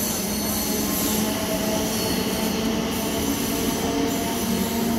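Indian Railways passenger train coaches running alongside the platform: a continuous, even rail noise with a few thin steady tones riding over it.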